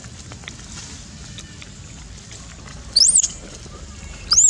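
Two short, loud, high-pitched squeals from a young long-tailed macaque, one about three seconds in and another near the end, each sweeping up and down in pitch: a hungry baby calling for food while being hand-fed.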